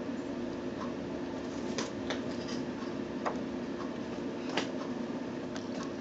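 Pet ferrets scrabbling close by: light, irregular clicks and ticks of their claws, about one a second, over a steady low hum.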